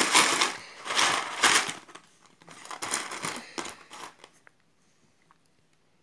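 Plastic bingo chips rattling and clattering as a hand swirls them around in a cardboard box tray, in two spells, the second softer, before one chip is picked out.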